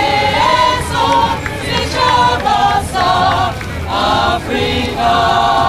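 A women's community choir singing a song together as it marches, the sung notes held and gliding from one to the next, with crowd noise beneath.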